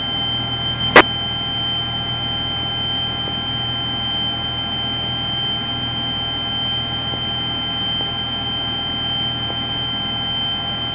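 Diamond DA40's engine and propeller running steadily in a cruise climb, a constant drone with a thin high whine over it. A single sharp click about a second in.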